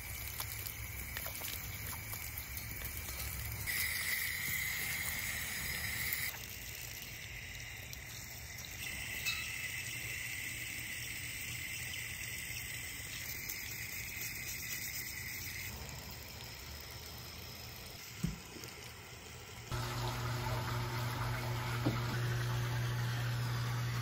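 Water from a garden hose splashing and trickling over a turtle's shell as it is scrubbed with a toothbrush, in short clips that change abruptly. For the last few seconds a steady low hum takes over.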